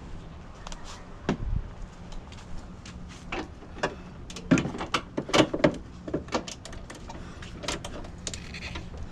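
Irregular metallic clicks and clunks of a hand wrench and gloved hands working a tight bolt loose at the plastic radiator support of a van's front end, busiest about halfway through.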